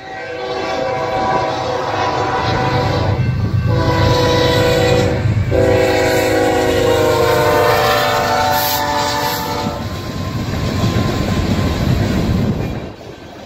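A GE Dash 9 locomotive's Nathan K3LA air horn sounds three blasts for the grade crossing, the last held for about four seconds, over the low rumble of the train. After the horn stops, the train's rumble and wheel clatter carry on and then fall away near the end.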